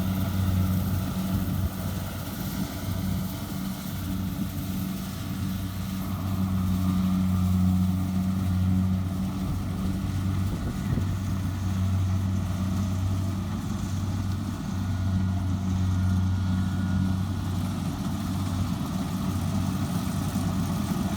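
Diesel engine of a Kubota DC70 combine harvester running steadily at a constant speed.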